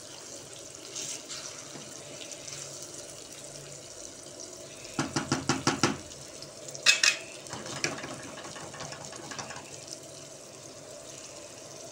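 A wooden spoon stirring a thick tomato and mince sauce simmering in a non-stick frying pan, over a steady faint bubbling hiss. About five seconds in comes a quick run of about seven taps, and about seven seconds in a single loud knock as the spoon is struck against the pan.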